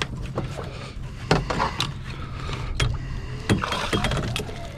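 Spinning reel being cranked to bring a big flounder up to the boat, its gears running, with several sharp knocks and clicks in between. Near the end the hooked fish splashes at the surface.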